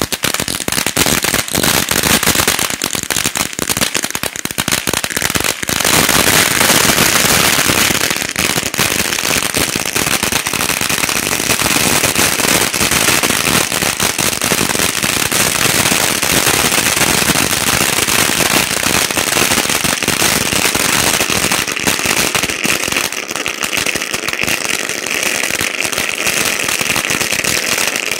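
Brothers Coliseum 500-gram fountain firework burning on the ground: a dense, continuous crackle and hiss of sparks, with a louder rush of hissing about six seconds in.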